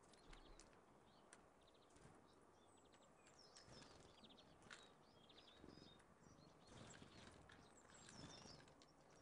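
Faint chirps and twitters of small songbirds at a garden seed feeder, coming in two brief spells a few seconds apart, with a few scattered soft clicks.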